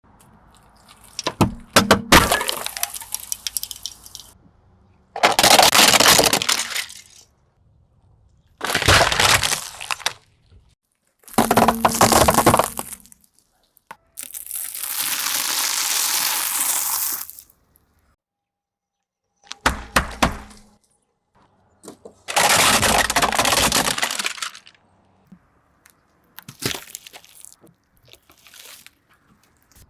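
A car tyre crushing objects, heard as a string of separate crackling, breaking bursts of one to three seconds each with silent gaps between them. One longer, steadier stretch of noise falls around the middle.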